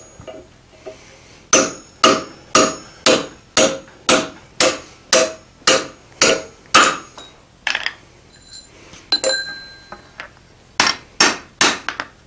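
Hand hammer striking a tapered drift to open a hot-punched hole in a red-hot iron bar on the anvil, sharp ringing blows about two a second for some five seconds. After a pause with a metallic clink, three more blows come near the end.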